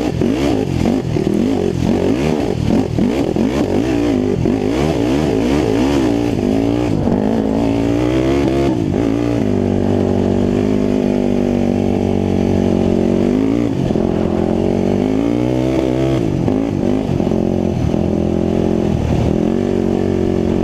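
Off-road vehicle engine heard from on board, revving up and down with the throttle on a dirt track. The pitch holds steady for a few seconds about halfway through, then drops and climbs again.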